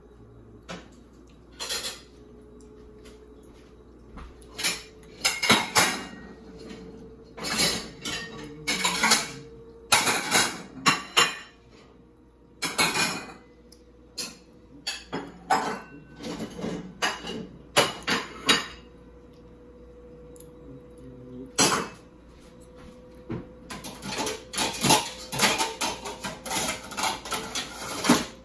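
Metal fork clinking and scraping against a bowl, in irregular clusters of short, sharp knocks as pasta is picked from it.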